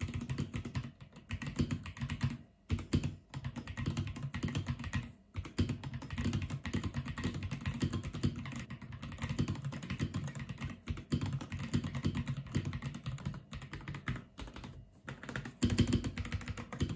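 Continuous typing on an Akko 5075B Plus mechanical keyboard with its switches mounted on an aluminium plate: a dense stream of keystroke clacks with a few short pauses.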